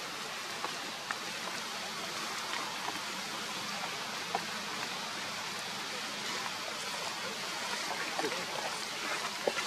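Steady outdoor background hiss with a few faint, soft ticks and rustles; no calls.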